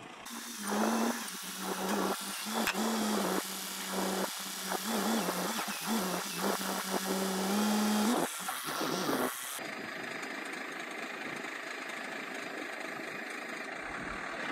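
Carelift ZoomBoom telescoping forklift's engine running with a steady drone that briefly rises in pitch a few times while the boom pushes a hay block into a trailer. Irregular rough noise lies over it. After about eight seconds the drone stops and a quieter steady rumble remains.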